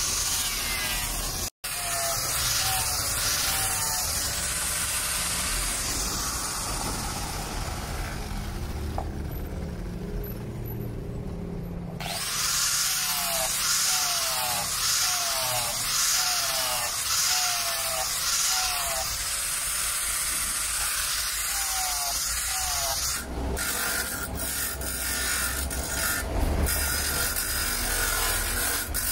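Small electric angle grinder with a sanding disc grinding a steel knife blade, the motor's whine dipping and recovering with each pass along the steel. Near the end a bench grinder takes over, grinding the blade's edge.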